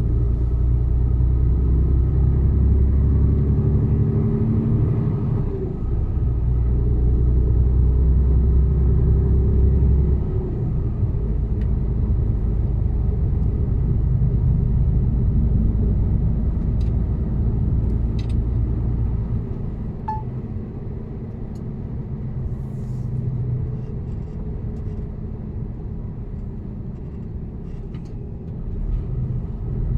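Mercedes-Benz Actros truck engine running on the road, its note changing in steps over the first ten seconds, then running steadier and a little quieter in the second half.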